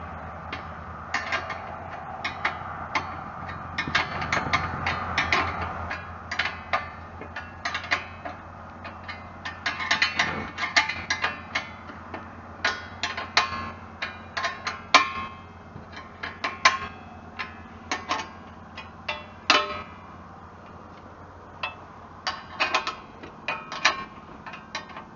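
Hand tools working nuts and bolts on a backhoe's control linkage: irregular sharp metallic clicks and clinks, like a ratchet wrench and spanner on steel, over a steady low hum.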